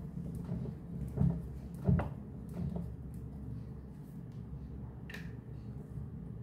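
Hands turning a washing machine's drive pulley to seat a new rubber belt: a few short knocks and clicks, the loudest about two seconds in, over a steady low hum.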